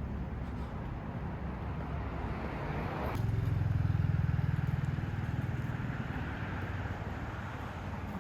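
Low, steady rumble of road traffic, which swells about three seconds in as a heavy vehicle passes close, then eases off.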